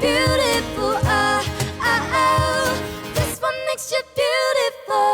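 Pop song sung with instrumental backing. About three and a half seconds in, the low accompaniment drops out, and the voice ends on a long held note.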